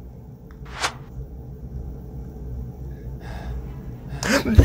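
A person's short, sharp gasp about a second in, then a softer breath a couple of seconds later, over a low steady rumble; a voice begins near the end.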